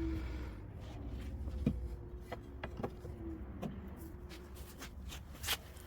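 Scattered light clicks and taps, about eight of them, irregularly spaced over a faint steady hum, like small handling sounds at a workbench.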